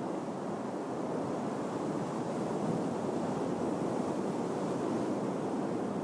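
Ocean surf: a steady, continuous wash of breaking waves, growing a little louder about two seconds in.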